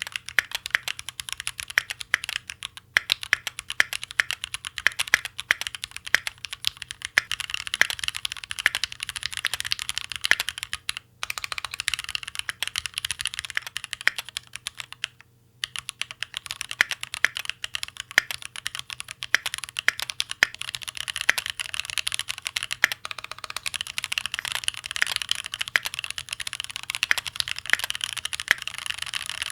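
Fast, continuous typing on a Keychron Q2 aluminium-cased mechanical keyboard fitted with Gateron G Pro Brown tactile switches and OSA keycaps: a dense stream of key clacks. It stops briefly twice, about a third of the way in and again about halfway.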